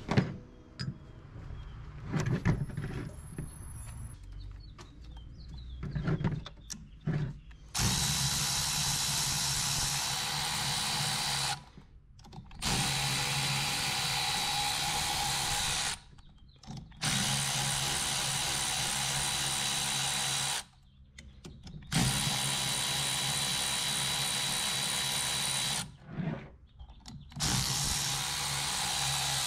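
A few knocks and clinks of alternator parts being handled, then a power drill running in five steady spells of a few seconds each, spinning out the through-bolts that hold the alternator's case halves together.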